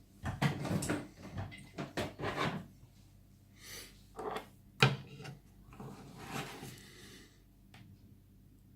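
Adhesive tape being peeled off a padlock in a series of short rasping pulls, with one sharp click about five seconds in and only faint handling near the end.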